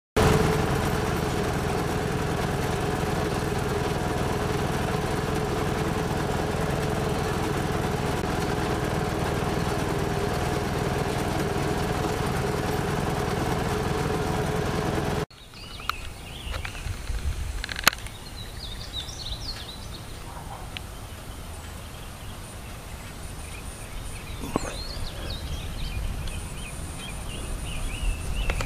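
Steady engine and road noise from a vehicle driving along a country road, cutting off abruptly about halfway through. Then quieter rural outdoor sound with birds chirping and a sharp click.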